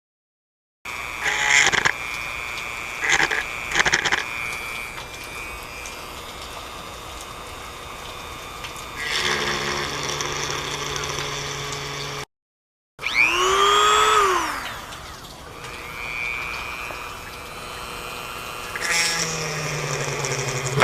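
Electric drill boring small starter holes in motorcycle fairing plastic: the motor whines in several runs, with short bursts near the start, a spin-up midway whose pitch rises then falls, and steadier drilling between.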